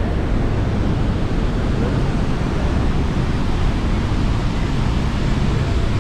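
Steady roar of Niagara's Horseshoe Falls, heavy in the low end, with wind and spray rumbling on the microphone.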